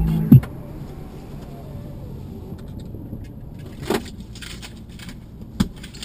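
Road noise inside a moving car: a steady low rumble of tyres and engine, with a short knock about four seconds in and another shortly before the end. Music cuts off just after the start.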